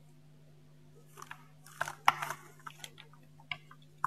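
Crinkling and crackling of a small plastic cup holding citric acid as it is handled and tipped into a plastic funnel on a water bottle. A burst of crackles about a second in is followed by scattered ticks and a sharp click at the end.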